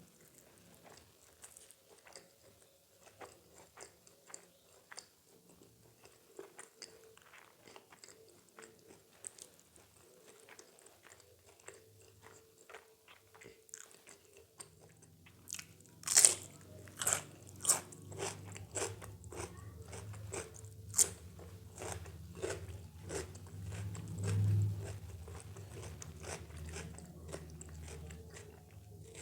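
Close-miked sounds of a person eating: soft, wet chewing for the first half, then a run of loud, crisp crunchy bites from about halfway through, with chewing between them.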